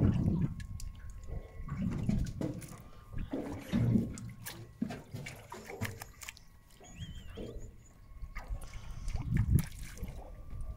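Water lapping and sloshing against a small boat's hull in irregular surges.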